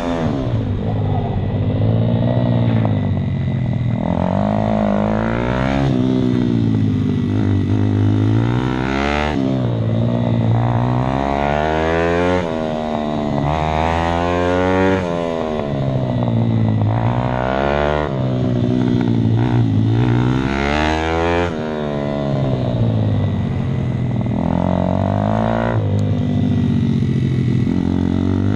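Daytona 190cc single-cylinder four-stroke pitbike engine at riding pace, heard on board: the revs climb with short breaks at gear changes, then fall away, over and over as the bike accelerates out of corners and slows for the next.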